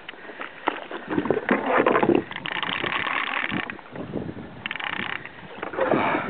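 Water splashing and sloshing around a kayak, with rustling and knocking from fishing gear being handled.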